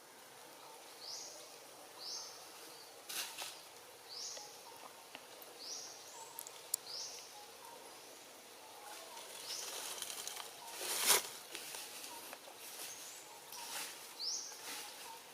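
Outdoor ambience with a short, high, rising chirp repeated about once a second, like a bird or insect call, with a few brief rustles or knocks, the loudest about two-thirds of the way through.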